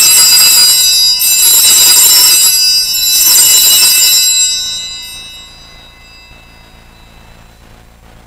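Altar bells rung at the elevation of the chalice during the consecration: a set of small bells shaken in three bursts about a second and a half apart, the bright ringing dying away a couple of seconds after the last.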